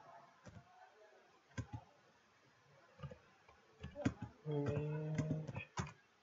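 Computer keyboard keystrokes, scattered single clicks and short runs of clicks as a word is typed slowly. A brief hummed voice, just under a second long, about four and a half seconds in.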